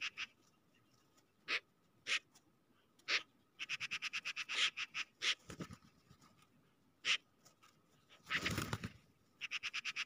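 Magpies chattering: fast rattling runs of harsh notes, about ten a second, at the start, in the middle and again near the end, with single sharp calls in between. A short rushing noise comes shortly before the last run.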